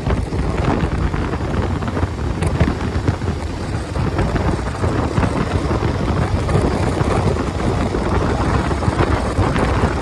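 Wind rushing and buffeting over the microphone of a motorcycle-mounted camera at about 75 km/h, with the motorcycle's running and road noise beneath it, steady throughout.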